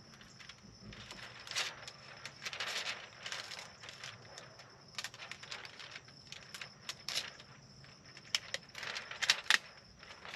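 Wet window-tint film being handled and slid against car-door glass by hand: irregular rustling and crinkling, with a few sharper crackles near the end.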